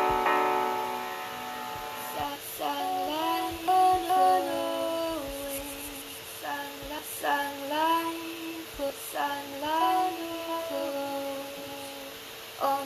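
Music played back from a sound-pack instrument: a held chord that fades away, then a high, voice-like lead melody whose notes slide up and down between held pitches.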